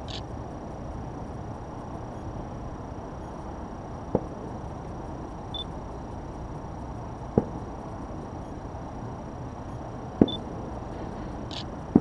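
Steady low outdoor rumble on the waterfront, broken by a short sharp knock about every three seconds, four in all.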